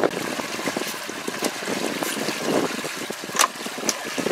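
Water lapping and splashing against a small boat's hull with wind on the microphone, and a scatter of short knocks and clicks from a crab trap being handled on deck, the sharpest about three and a half seconds in.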